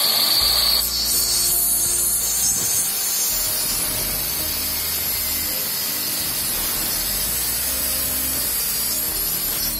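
Handheld electric circular saw (a 'maquita') running and cutting across a wooden beam. A high whine in about the first second gives way to steady cutting noise as the blade works through the wood.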